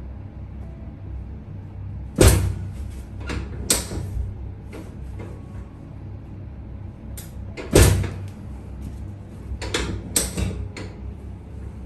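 Several sharp thumps and knocks, with lighter clicks between them, from a chiropractor's hands-on work on a patient, over a steady low hum.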